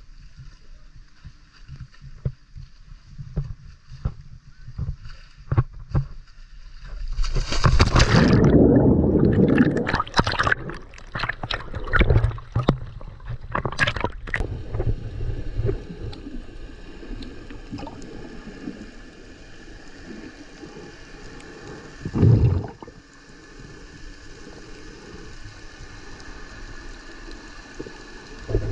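A person wearing swim fins plunges into the lagoon from a height, hitting the water with a loud splash about seven seconds in, followed by several seconds of splashing at the surface close to the camera. After that the sound turns to a muffled underwater hum, with one loud low thump around two-thirds of the way through.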